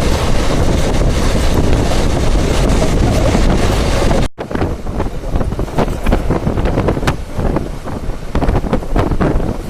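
Saurashtra Janata Express passenger train running, heard from on board: a steady rush of wind and running noise. About four seconds in the sound breaks off sharply, then continues as a rumble with a rapid, irregular clatter of knocks from the wheels and carriage.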